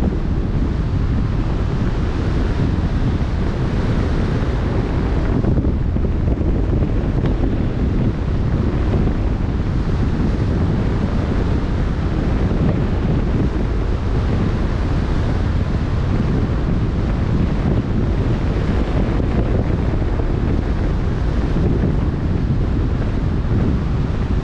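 Strong wind buffeting the microphone at sea, a steady low rumble over the rush of choppy open-ocean waves.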